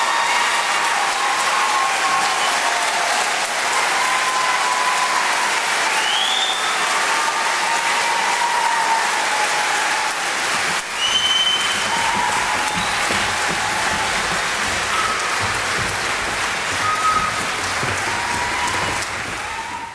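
Theatre audience applauding steadily, with a few cheers and whistles over the clapping.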